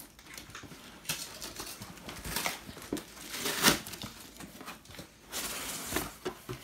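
Cardboard shipping box being opened: packing tape being cut and torn, with scraping and crinkling of the cardboard, a sharp crack about halfway and a longer rustle near the end.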